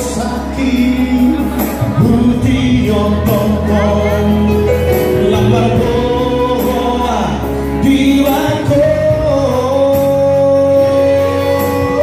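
Male vocal trio singing a Batak-language song in close harmony, with long held notes, amplified through handheld microphones over backing music with a steady beat.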